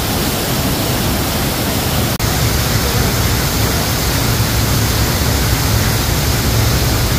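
Jacko Falls waterfall: a steady, loud rush of falling water.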